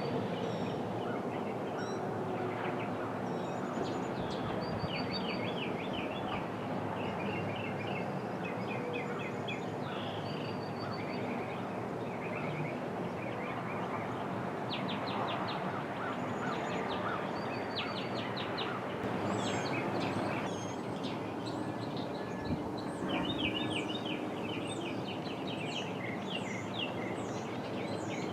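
Songbirds chirping and trilling over a steady outdoor background hum, with a faint low tone that slowly falls in pitch and fades in the first few seconds: the tail of a distant Federal Signal 2001 siren winding down after its growl.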